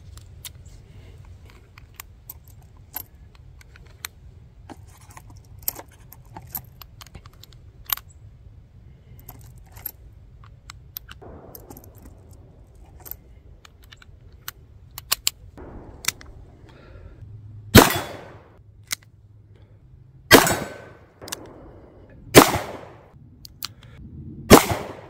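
Small metallic clicks and rattles of .38 Special cartridges being loaded into the cylinder of a Rossi Model 68 snub-nosed revolver, followed near the end by four loud revolver shots about two seconds apart.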